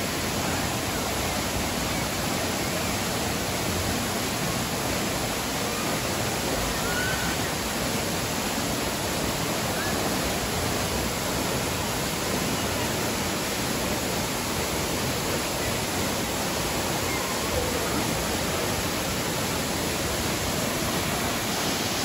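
Tall waterfall plunging into a pool, a steady, even rush of falling water.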